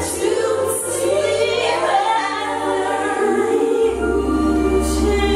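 Female vocal trio singing a gospel song in harmony into microphones. A deep low tone under the voices drops away at the start and comes back in about four seconds in.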